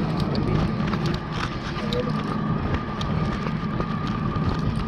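Spinning reel clicking and ratcheting irregularly as a hooked snook is played on a bent rod, over the steady hum of the boat's motor.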